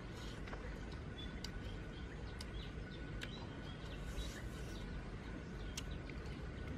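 Outdoor ambience with scattered short bird chirps over a steady low rumble, with irregular sharp clicks throughout.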